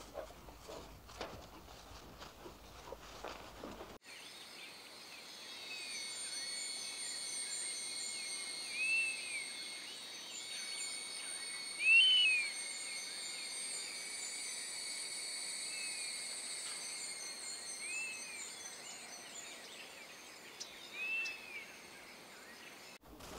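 Outdoor nature ambience: insects trill steadily at several high pitches, and a bird gives short, arched chirps every few seconds, the loudest about halfway through. For the first few seconds, before the insects come in abruptly, there is only soft scattered patter and rustling.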